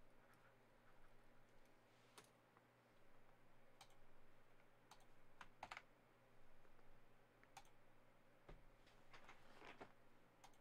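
Faint, irregular clicks and taps of a computer keyboard and mouse, a dozen or so scattered keystrokes and button presses.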